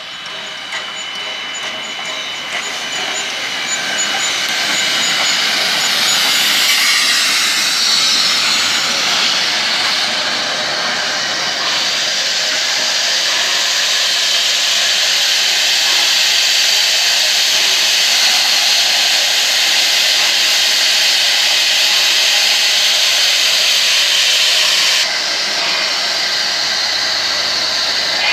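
Steam locomotives PB15 448 and AC16 221A passing at walking pace: a steady hiss of escaping steam over the rumble of wheels and rods. It grows louder over the first few seconds as the engines come alongside, with the hiss at its loudest several seconds in.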